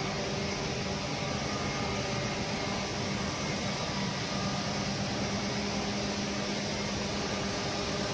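Steady drone of industrial air compressors running, a constant low hum under an even rushing noise with no change in pitch or level.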